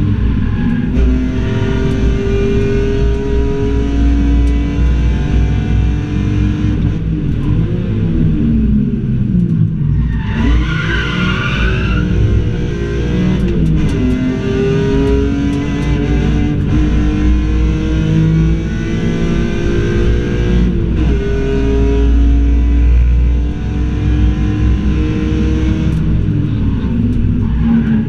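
BMW M3 race car engine heard from inside the cabin, running hard with the revs climbing, falling and climbing again through gear changes and braking. Near the middle, as the revs drop, the tyres squeal briefly with a wavering high pitch.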